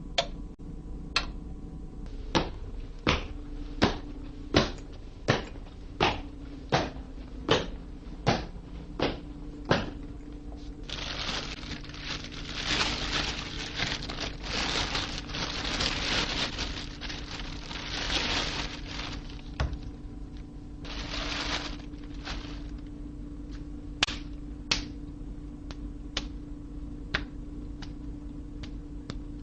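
A series of sharp, evenly spaced taps or knocks, about three every two seconds, then several seconds of loud hissing noise in bursts, then a few more scattered taps over a steady low hum.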